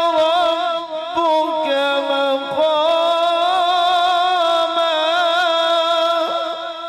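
A man's voice reciting the Quran in melodic tajweed style, drawing out a long ornamented note with a wavering pitch. It fades away near the end.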